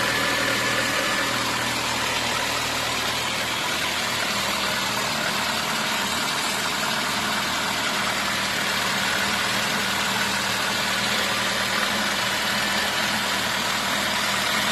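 VAZ 2115's four-cylinder petrol engine idling steadily after a rebuild with a bored block and new pistons; it runs quietly, with the piston knock gone.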